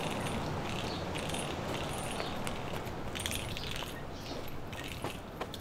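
Outdoor street ambience: a steady low background hum with a few faint light clicks and jingles scattered through it.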